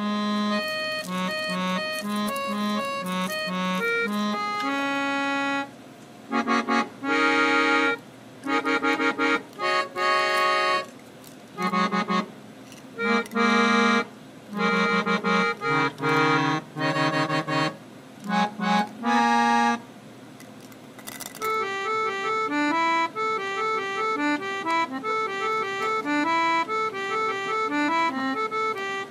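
Background music: a tune of short chords in bursts with brief gaps, changing about two-thirds of the way in to a quicker run of single notes.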